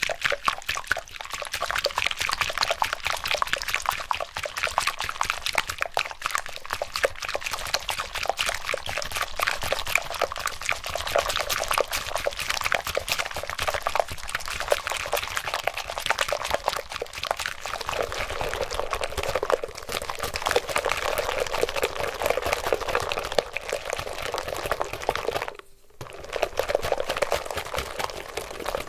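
Whipping cream beaten by hand with a wire balloon whisk in a glass bowl: fast, continuous wet sloshing strokes, the wires ticking against the glass, as the liquid cream thickens toward soft peaks. A brief pause in the whisking near the end.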